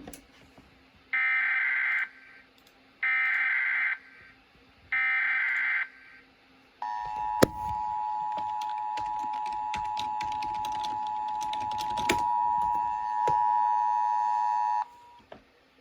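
Emergency Alert System broadcast tones. The three short warbling SAME data bursts of the header come first, then the steady two-tone attention signal of about 853 and 960 Hz, which starts about 7 seconds in and holds for about 8 seconds before cutting off. A sharp click sounds just after the tone begins.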